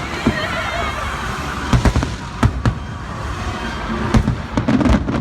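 Fireworks shells bursting in a rapid, irregular series of sharp bangs, with the show's soundtrack music playing underneath.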